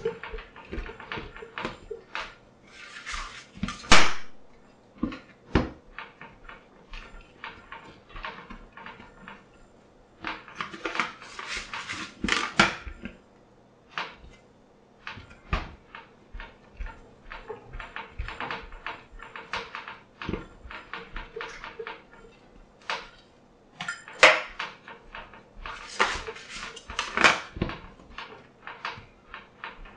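Fresh pasta dough being kneaded by hand on a stainless-steel counter: an irregular run of soft knocks and thumps as hands and dough press and turn on the steel. Three times it thickens into short stretches of busier rubbing and knocking.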